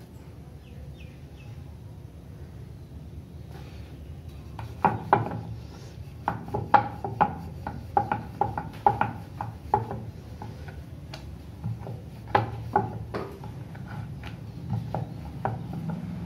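Wooden rolling pin rolling out beetroot paratha dough on a wooden board, making a run of sharp wooden knocks and clacks about two a second that starts about five seconds in. A low steady hum sits underneath.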